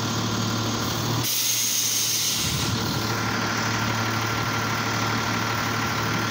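Automated side-loading garbage truck's diesel engine idling steadily. About a second in, a burst of air-brake hiss lasts about a second and a half as the truck stands at the curb.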